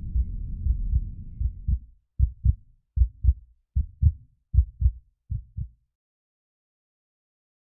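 Heartbeat sound effect: low lub-dub double thumps at a steady pace of about one beat every 0.8 seconds, under a low rumble for the first two seconds, then standing alone, fading and stopping about six seconds in.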